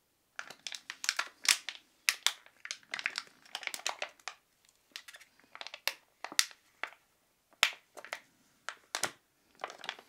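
Plastic snack wrapper crinkling as it is handled, in short irregular crackly bursts.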